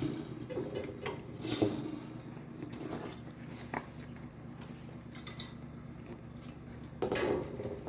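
A few light clinks and knocks of a replacement clothes-dryer heating element and multimeter leads being handled and positioned for a continuity test, spaced irregularly with a small cluster near the end, over a faint steady hum.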